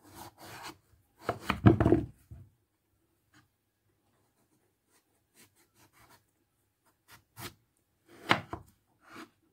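A kitchen knife scraping and cutting at a peeled raw papaya, in short separate strokes. The loudest scrape comes about one and a half seconds in, and another comes near the end.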